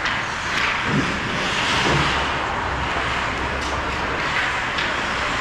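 Ice rink sound during a hockey game: a steady hiss of skates scraping the ice over a low rumble, with a few sharp clacks from sticks and puck.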